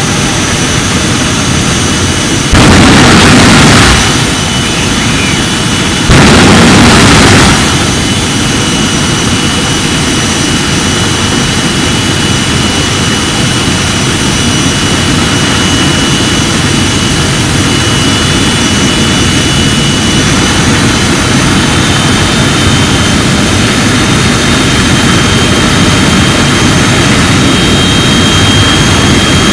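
Jet engines of a jet-powered fire truck running at full blast with a steady high turbine whine over the rushing exhaust. Two louder surges, each about a second and a half long, come about 2.5 s and 6 s in.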